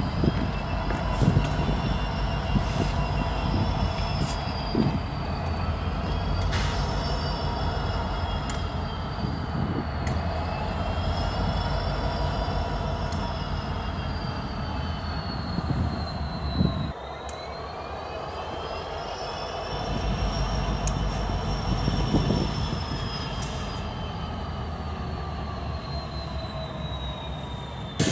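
CN SD60 diesel locomotives, with 16-cylinder EMD two-stroke engines, moving slowly in reverse while their wheel flanges squeal in long tones that rise and fall over the steady engine rumble. The rumble drops noticeably about two-thirds of the way through.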